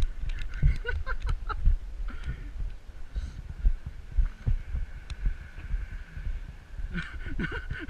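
Irregular low thumps and knocks, with scattered sharp clicks and faint voices in the background.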